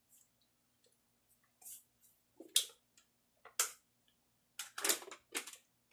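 A person's short, sharp breaths and gasps, in scattered bursts with the loudest about halfway through and a quick run of them near the end, as he reacts to a foul-tasting Bean Boozled jelly bean and swigs water.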